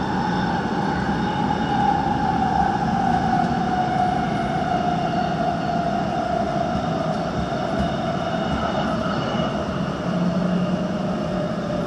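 Busan Metro Line 3 train running on elevated track: a steady rumble of wheels on rail, with a motor whine that falls slowly in pitch as the train slows.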